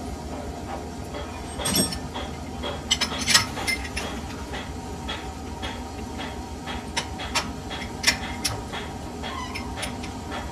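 Lathe work on a steel shaft: a steady low machine hum with irregular metallic clicks, clinks and knocks scattered through it, the loudest about two, three and eight seconds in.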